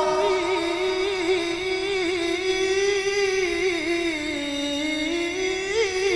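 A male qari reciting the Quran in the melodic tilawah style: one long held phrase with wavering ornaments, dipping a little lower about four seconds in and turning upward again near the end.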